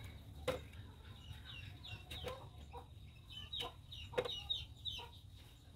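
Chickens calling: a string of short, high, falling clucks and peeps, with a few sharp clicks in between.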